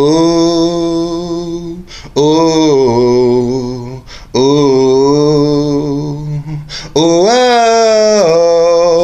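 A man singing solo with no accompaniment, holding long notes in four phrases with short breaths between them. The last phrase climbs higher in pitch.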